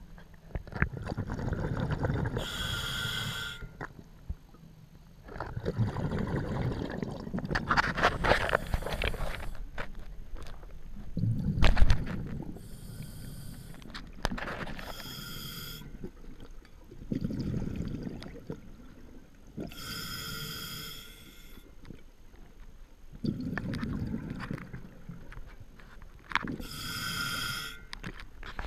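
A scuba diver breathing through a regulator underwater, about five breaths: short whistling inhalations alternate with longer, low bubbling bursts of exhaled air.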